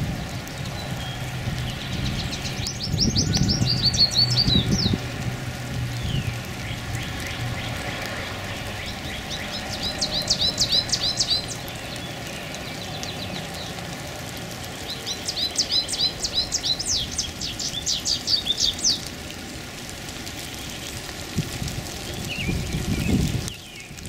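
Songbird singing three bursts of rapid, evenly repeated high notes, about 3 s, 10 s and 15 s in, the last one the longest. A low rumble underlies the first half.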